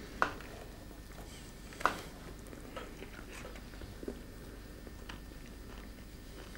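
Quiet room tone with a few scattered sharp clicks: two stronger ones in the first two seconds, then several fainter ticks.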